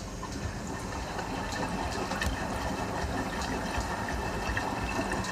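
ELBA 7kg front-load washing machine running with water, a steady rushing and splashing that slowly grows louder, with light clicks and ticks through it.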